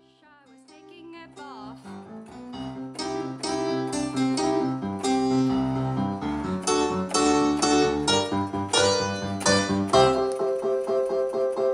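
Keyboard music: a piano-voiced melody over chords played on an electronic keyboard. It fades in over the first few seconds, then plays steadily with sharp note attacks. The bass notes drop out near the end, leaving a held chord.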